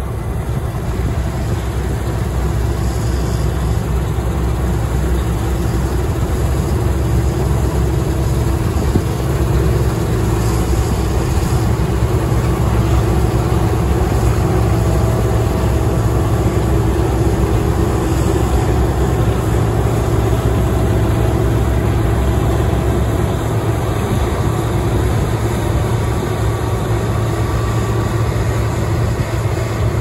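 Case IH 2388 Axial Flow combine harvester running steadily while harvesting barley, its six-cylinder turbocharged Cummins engine and threshing machinery giving an even, low hum.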